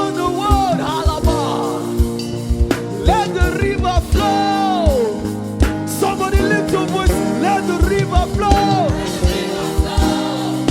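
Gospel worship music: a band playing held keyboard chords over a regular kick drum, with a singer's sliding, wordless vocal runs on top.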